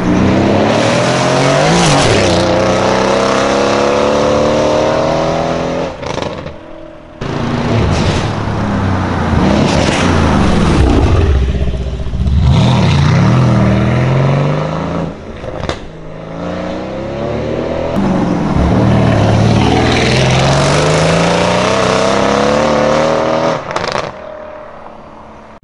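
Mercedes-AMG C63S W205's twin-turbo 4.0-litre V8, running an Akrapovic titanium catback with IPE decat downpipes (no catalytic converters), accelerating hard past and away. The exhaust note climbs in pitch and drops back at each upshift, several times over, loud throughout, with a few abrupt cuts between passes.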